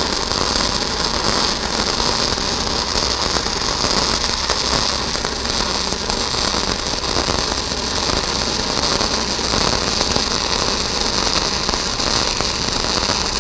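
Shielded metal arc (stick) welding with a 6010 electrode on a root pass in beveled steel plate: the arc gives a steady, harsh crackle and hiss. This is the torch sound through the back of the joint that tells the welder he is getting penetration.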